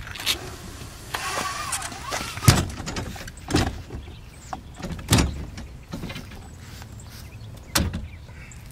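A plastic Jackson kayak being slid and rolled back off a car roof over a homemade roller on a bike rack, its hull rumbling over the roller. About five sharp knocks as the boat shifts and tips down, with a brief squeak about a second in.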